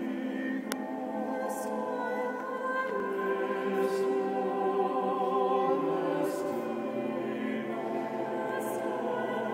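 Small chamber choir singing a cappella in a church, several voices holding long chords together and moving to a new chord about three seconds in.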